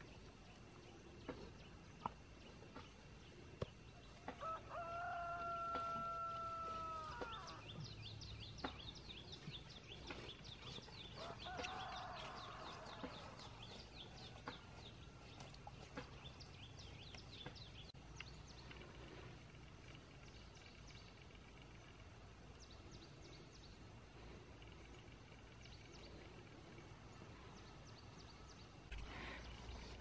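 A rooster crows, a long held call about four seconds in, with a fainter crow a few seconds later. Small birds chirp in a quick high series for about ten seconds.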